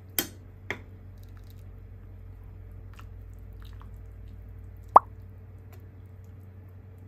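Slotted tongs clicking and tapping against the pot as boiled meat is lifted out of the water. There are two sharp clicks near the start, a few faint ticks, and one loud ringing tap about five seconds in, over a steady low hum.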